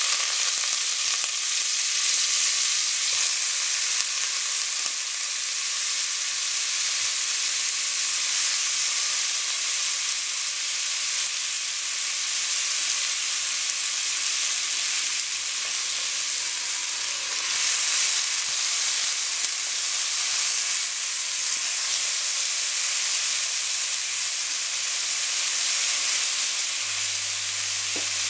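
Freshly washed, still-wet rice sizzling steadily in hot oil in a metal pot as it is stirred and fried.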